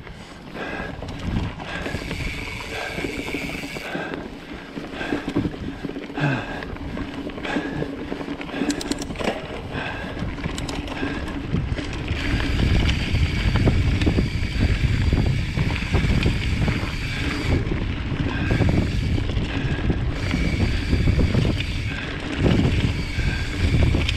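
Mountain bike riding along a dirt forest trail: tyres rolling over the ground and the bike rattling, with wind noise on the microphone, getting louder about halfway through.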